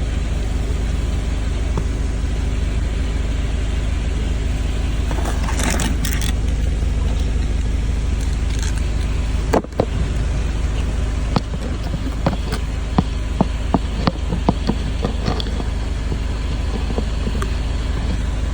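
Wind buffeting the microphone as a steady low rumble, with a run of sharp clicks and small knocks from about eleven to fifteen seconds in.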